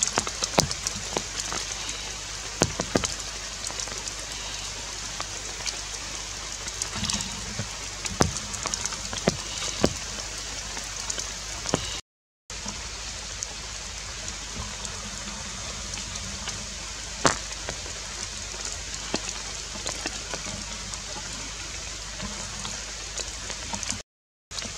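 Rain falling on forest foliage: a steady hiss with many scattered sharp drips. The sound cuts out briefly twice, about halfway through and near the end.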